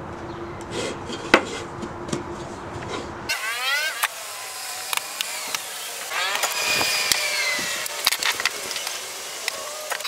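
Workshop handling noises: sharp clicks and knocks from the drawer parts and bar clamps being set, with squeaky gliding tones after an abrupt change about three seconds in.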